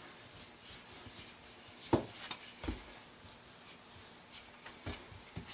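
Wooden rolling pin rolling out pizza dough on a floured countertop: faint rubbing and rolling, with a couple of soft knocks near the middle.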